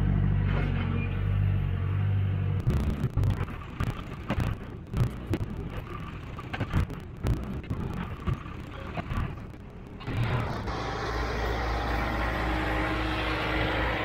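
Diesel engine of farm machinery running steadily. From a few seconds in, irregular knocks and clatter take over for several seconds. About ten seconds in, a steady, lower engine sound comes back.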